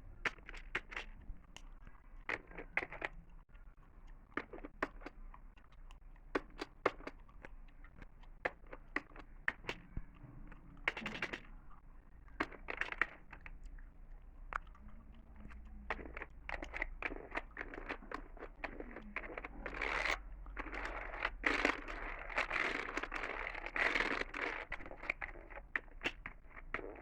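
Close-miked ASMR sounds of gum chewing and tapping on a computer: irregular sharp clicks and crackles, which become denser and louder about two-thirds of the way through.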